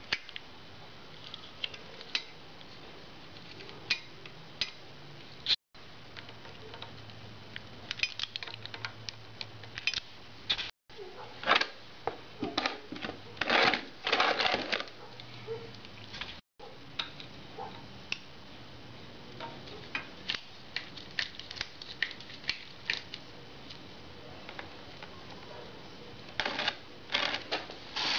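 Hand tools clicking, clinking and scraping at the drain screw on a Harley-Davidson Sportster's front fork slider as it is worked loose to drain the fork oil: scattered short metallic taps, busiest around the middle, broken by a few abrupt cuts.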